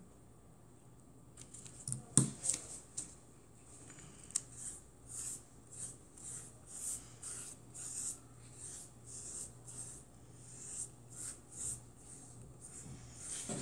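Paintbrush dragged back and forth through red paint on a canvas, a scratchy swish with each stroke, about two strokes a second. A sharp knock about two seconds in.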